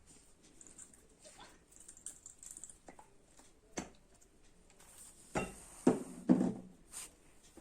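A spoon stirring shaving-foam slime in a bowl just after borax activator is added: scattered light clicks and taps against the bowl, with three louder knocks a little past halfway.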